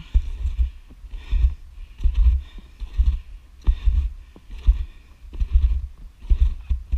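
Snowshoe footsteps on snow at a steady walking pace, about one step a second. Each footfall comes through the head-mounted camera as a heavy thud with a crunch.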